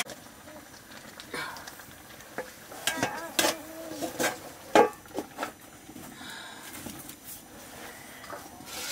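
Metal kitchenware knocking and clinking as an upturned metal bowl is set over a frying pan on an iron stand above a wood fire, with short bursts of small children's voices; the loudest is a child's cry a little before halfway.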